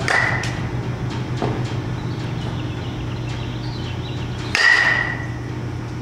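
Baseball bat hitting pitched balls twice, about four and a half seconds apart, each hit a sharp crack followed by a short ringing ping, over a steady low hum; a fainter knock comes about a second and a half in.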